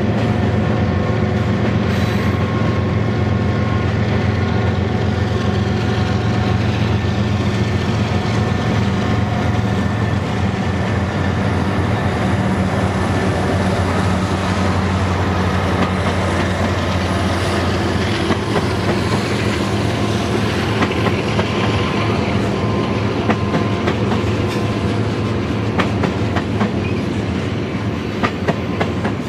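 Freight train passing: a group of Union Pacific diesel locomotives placed mid-train runs by with a steady engine drone. The drone then fades as tank cars roll past, their wheels clicking over the rail joints more and more distinctly toward the end.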